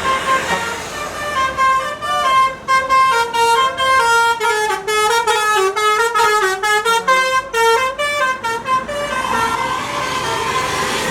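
Tour bus telolet (basuri) multi-tone horn playing a fast melody of short stepped notes. The melody stops about nine seconds in, leaving a steady rushing noise.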